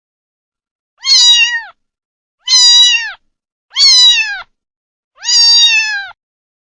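A kitten meowing four times, high-pitched calls each about half a second long that hold their pitch and then drop at the end, with short silent gaps between.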